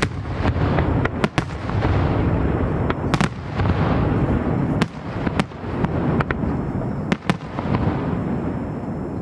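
Fireworks display: aerial shells bursting with a dozen or so sharp bangs at irregular spacing over a continuous low din from the ongoing barrage.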